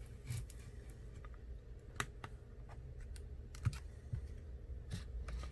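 Scattered small clicks and taps of a prying tool working at the edge of an iPhone XR's broken screen to lift the display from the frame, over a faint low hum.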